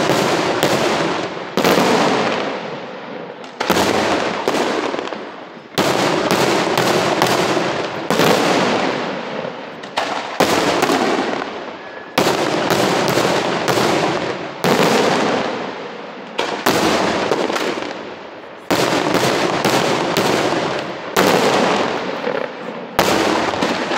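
Aerial fireworks shells bursting high overhead in rapid volleys of sharp bangs. Several bangs land close together, a new volley comes about every two seconds, and each volley echoes and fades away.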